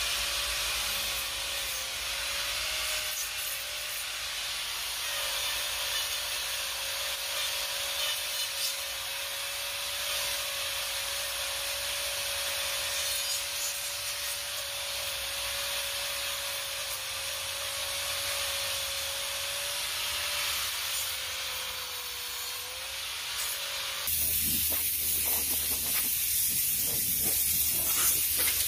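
DeWalt angle grinder with a Manpa carbide carving cutter running with a steady whine, cutting texture into finished wood to strip off the stained surface. About 24 seconds in the whine drops out and a louder, rougher grinding noise takes over.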